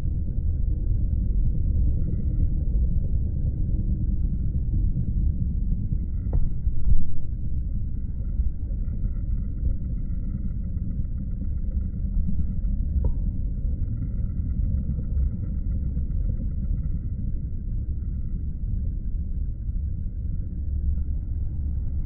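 Steady low rumble of background noise with no distinct events, apart from two faint clicks about six and thirteen seconds in.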